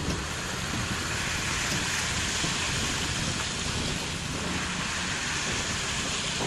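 Steady rumble and hiss of a heavy truck road train rolling along the road, mostly tyre and road noise.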